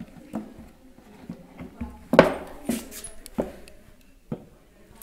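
Plastic bottle knocking and crinkling as a Labrador puppy bites and pushes it, in scattered short clicks and knocks, with a louder burst about two seconds in.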